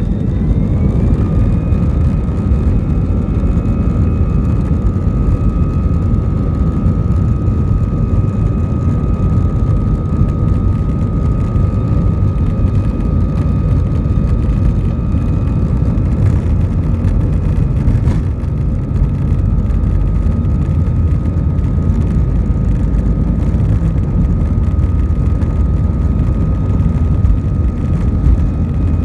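Airliner engines at high takeoff power heard from inside the cabin, a loud steady rumble with runway noise. A whine rises in pitch over the first couple of seconds, then holds steady.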